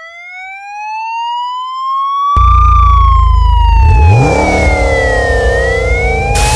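Siren wailing, its pitch rising slowly and then starting to fall. About two seconds in, a very loud, distorted low drone cuts in under it, joined by more sliding siren tones. A loud burst of hiss comes near the end.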